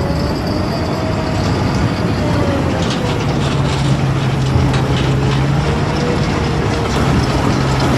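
Heavy diesel engine running steadily under load, with a faint whine that drifts slowly in pitch and a steadier low hum setting in about three seconds in.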